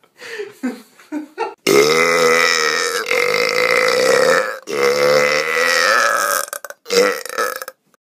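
A young man belching loudly on command, mouth wide open: a long drawn-out belch of about three seconds, a second of about two seconds, and a short one near the end.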